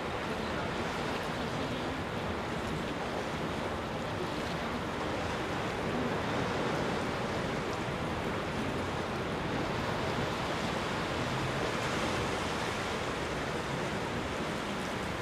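Sea surf washing steadily against a rocky shore, with wind.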